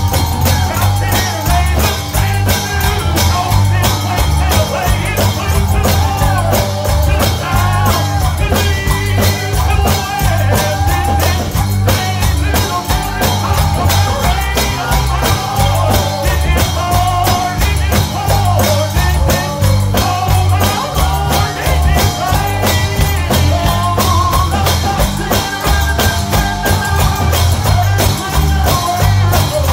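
Live gospel band music with a fast, steady beat: drums and tambourine over a pumping bass line, with a wavering melody line on top.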